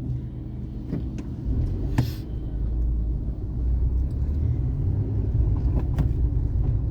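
Low, steady rumble of a vehicle being driven, growing a little louder about a second and a half in, with a few short clicks.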